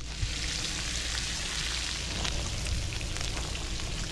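Bacon strips sizzling on an electric griddle: a steady frying hiss with small crackling pops.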